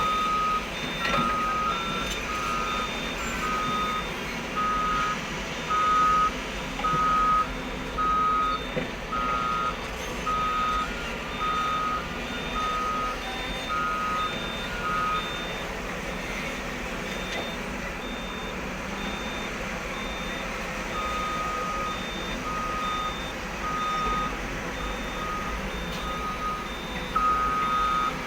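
Reversing alarm on a dump truck beeping about once a second over the steady noise of heavy diesel machinery. The beeping stops for several seconds around the middle, then starts again.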